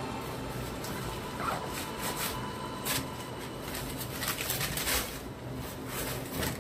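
Rustling of tissue paper and cardboard with a few light knocks and scuffs as a sneaker is handled in its shoebox, over a faint steady hum.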